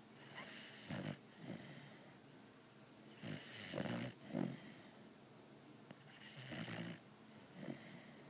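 Blue-nose pit bull snoring very loud in its sleep: about five rasping snore breaths, each half a second to a second long, in an uneven rhythm.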